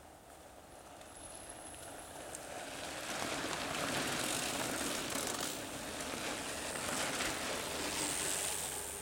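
A pack of mountain bikes riding past close by on a dirt trail: tyres rolling over sand and dry leaves, with freewheel hubs ticking. The noise swells after a couple of seconds and fades near the end as the riders go by.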